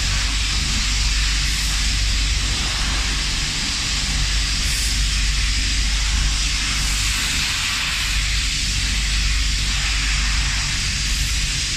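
Powder-coating spray booth running: a steady hiss of moving air with a low machine drone underneath.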